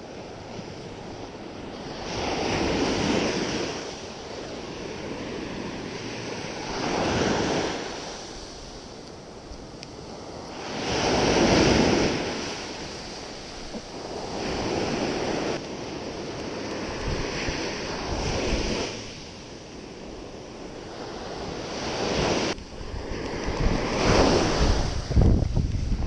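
Small sea waves breaking and washing up a sandy beach, the surf swelling and fading every four seconds or so, with wind buffeting the microphone.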